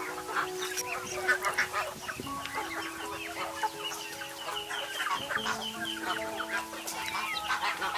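Chickens clucking, with a quick run of high cheeping calls in the middle, over background music of long held notes.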